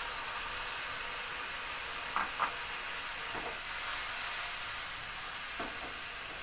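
Hot mustard oil sizzling steadily in a wok of frying fish and potatoes after a little water has gone in, with a few short knocks as the wok is handled on the burner.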